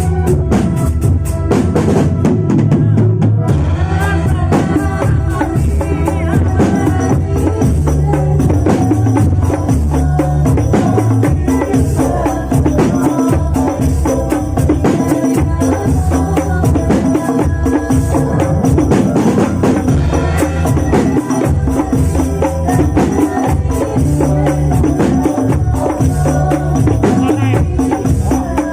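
Rebana group music: Indonesian frame drums playing a busy, steady rhythm under a melody.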